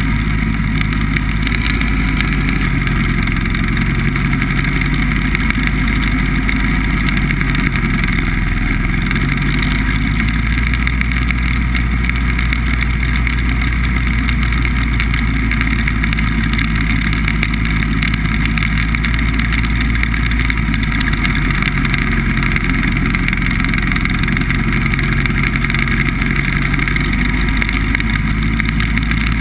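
BBV2+2 hovercraft's engine and fan running steadily while the craft is under way, a constant loud drone with no change in pace.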